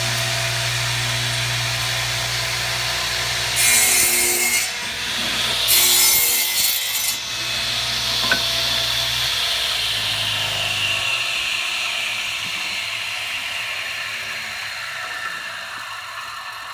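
A 10-inch radial arm saw running and crosscutting a wooden board twice, about four and six seconds in. Later the motor is switched off and the blade spins down, its whine falling and fading away.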